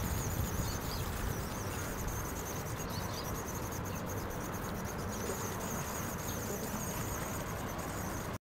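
Outdoor ambience: a steady high-pitched insect chorus, with a low rumble of wind on the microphone. It cuts off abruptly near the end.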